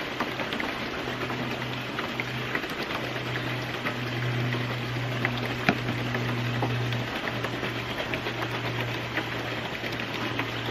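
Steady rush of running water, with a few light ticks and one sharper click about halfway through. A low steady hum runs underneath.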